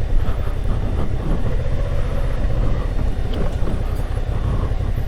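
Suzuki V-Strom 650 XT's V-twin engine running at low speed as the motorcycle is ridden slowly down a rutted dirt trail, with wind noise on the microphone.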